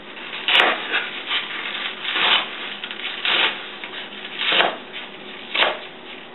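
Kitchen knife slicing through rolled-up collard green leaves on a cutting board, a rasping stroke about once a second as the greens are cut into thin strips.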